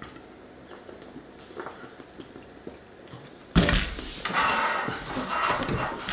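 Faint gulping from a 2-liter plastic soda bottle, then about three and a half seconds in the bottle is set down on a wooden table with a sudden thump, followed by a stretch of louder rustling.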